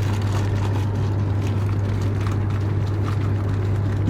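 Steady low hum and rumble inside a TGV Lyria carriage, with a few faint light ticks.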